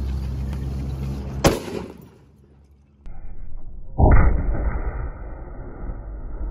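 Firecracker explosions: a sharp bang about a second and a half in. After a short lull, a second, louder and deeper muffled boom about four seconds in, which fades slowly.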